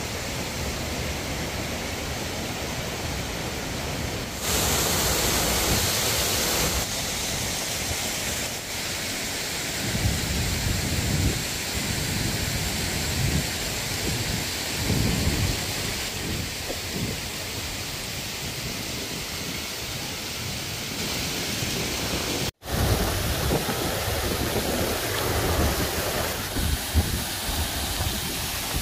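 Steady roar of a tall waterfall, a dense rushing noise with low rumbling swells. It breaks off for an instant about two-thirds through.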